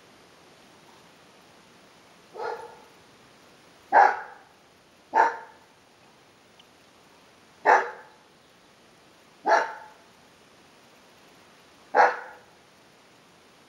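Bernese mountain dogs barking in play: six single barks spaced a second or two apart, the first one softer than the others.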